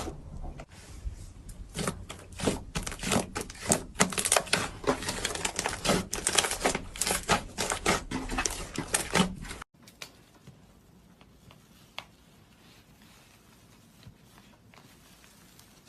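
Slime being squeezed and poked, making rapid, dense crackling clicks that cut off suddenly about ten seconds in, leaving faint background with one small click.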